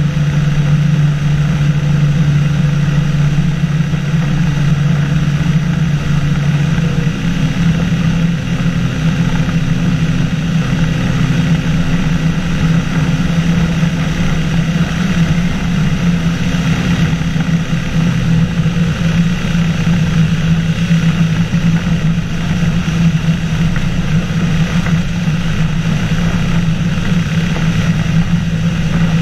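Microlight flying boat's engine and pusher propeller running steadily in flight. Its note shifts slightly about seven seconds in and again a little after eighteen seconds.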